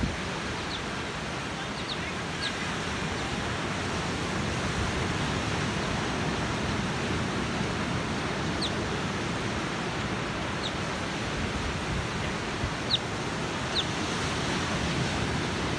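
Steady rush of ocean surf breaking on the beach, with a few short, high, falling chirps scattered through.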